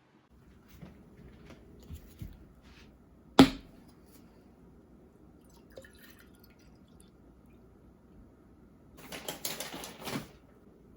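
Handling sounds in a small room: scattered light clicks and taps, one sharp knock about three and a half seconds in, and a short burst of clattering near the end.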